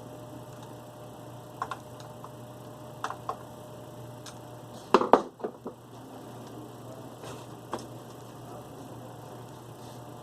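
Light clicks and taps of small plastic and metal parts being handled while working inside a Beta VCR, with a louder cluster of clicks about five seconds in, over a steady low hum.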